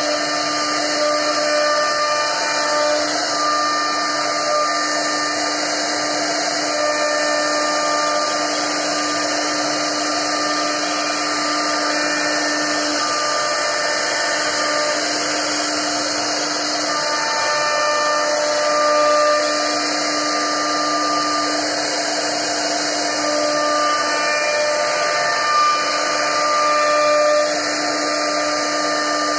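CNC wood router cutting carved patterns into a wooden board. The spindle runs with a steady whine over an even cutting hiss, and short tones of different pitch come and go.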